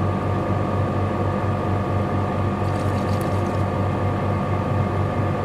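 Air conditioner running: a steady mechanical hum with a low drone that pulses several times a second under a few steady whining tones, and a few faint clicks around the middle.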